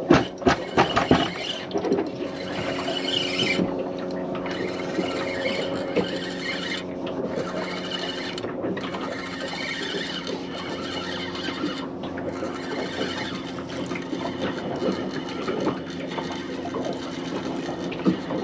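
Small boat's engine running steadily at low revs, with water splashing against the hull.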